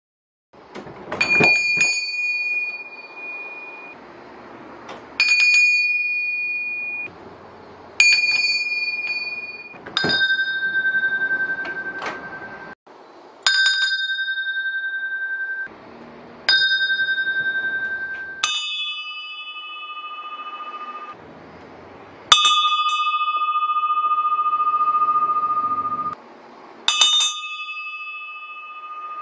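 Solid brass wall-mounted door bells, three sizes in turn, each struck by its clapper about three times and left to ring out. The pitch drops with each larger bell: a high ring from the smallest, a middle one from the 4.5-inch, a deeper one from the 5.5-inch.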